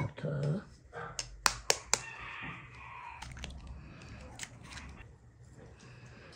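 Handling sounds of dough being made by hand: about four sharp clicks and knocks in quick succession between one and two seconds in, then a short rustling noise.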